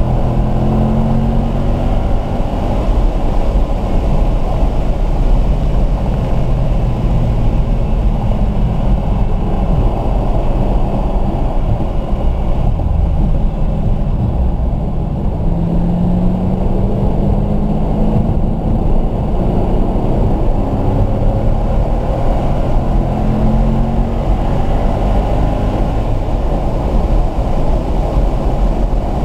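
Car engine heard from inside the cabin during a track lap over heavy road and wind noise: it eases off as the car slows for a corner, then accelerates hard, rising in pitch through the gears with shifts about two-thirds of the way through and again near the end.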